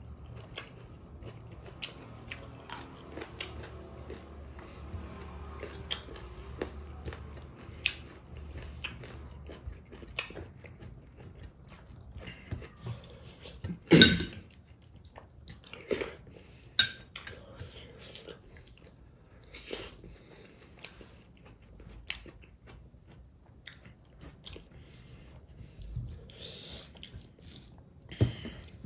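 A person chewing and biting food close to the microphone: many small wet clicks, with a few louder sharp sounds, the loudest about halfway through.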